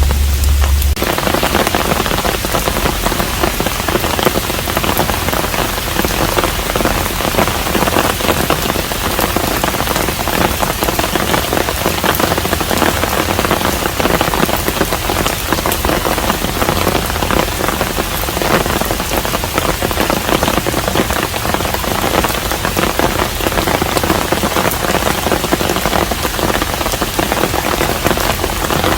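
Steady rain falling on a hanok (traditional Korean house), a dense even hiss with the patter of many individual drops. A low hum underneath cuts off about a second in.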